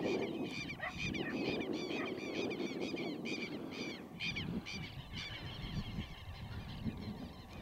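Bird calls: a fast run of short, shrill, repeated notes, several a second, thinning out toward the end, over a low rushing noise.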